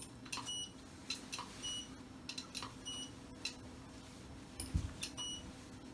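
Short, high electronic beeps from medical equipment, repeating about every second and a bit, over light clicks and a faint steady electrical hum.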